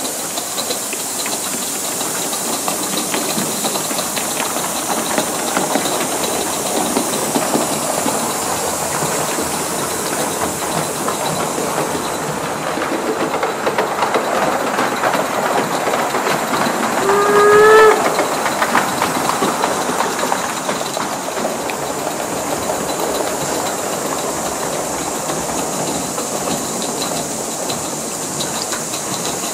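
Coal-fired gauge 1 live-steam model locomotive running: a steady steam hiss with rapid ticking of its exhaust and wheels, and a short steam whistle blast with a slight upward bend a little past halfway, the loudest moment.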